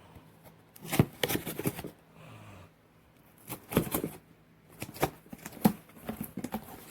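Handling noise: rustling and light clicks as parts and their packaging are handled, in three short bursts about a second in, in the middle and near the end.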